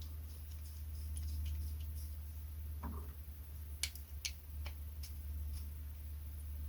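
Small sharp clicks and taps of a tiny bolt being fitted by hand through resin-printed intercooler pipework and bracket, with a soft knock about three seconds in and a few crisper clicks a second later, over a steady low hum.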